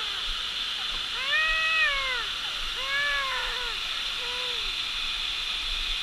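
A small child's voice making drawn-out whining cries, three in a row, each rising and then falling in pitch, over a steady background hiss.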